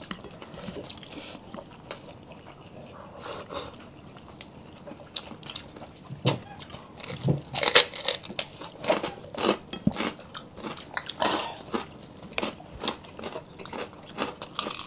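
Several people eating with their hands: close-up chewing, lip smacks and bites on beef ribs and rice. The smacks are sparse at first and come thick and fast from about six seconds in.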